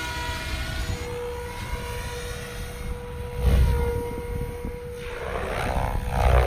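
Electric RC helicopter (SAB Goblin Black Thunder) in flight: a steady high whine from its motor and drivetrain under the rush of the spinning main rotor. The rotor noise swells loudly twice, about three and a half seconds in and near the end, as the helicopter manoeuvres.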